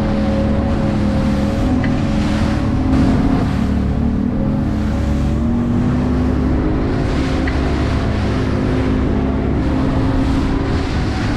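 Boat engine running at speed, its note rising slightly about halfway through, with water rushing and splashing along the hull as it runs through the chop.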